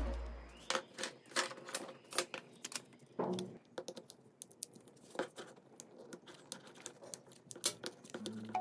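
Light, irregular clicks and scratches of a plastic opening tool and a thin pry sheet working along the edge of a Samsung Galaxy A02s's cracked screen, prying the heat-softened display away from the frame. A hair dryer's low hum dies away in the first second.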